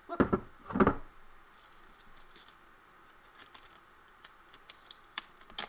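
Masking tape being pulled off the roll in two short, loud rips about half a second apart, followed by faint clicks of paper and tape being handled.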